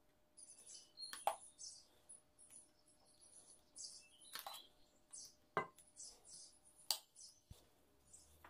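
Faint kitchen work: four sharp clinks of utensils against dishes, with short high-pitched chirping sounds scattered between them.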